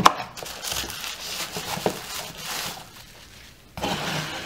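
Bubble wrap crinkling and rustling, with a few light clicks, as a bubble-wrapped clear acrylic case is handled and pulled out of a small cardboard box. The rustling stops about three seconds in and comes again briefly near the end.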